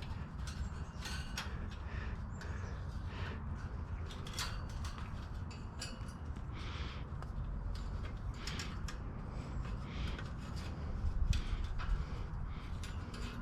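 Irregular light clicks and creaks of hands handling parts on an e-bike's rear rack, over a steady low rumble.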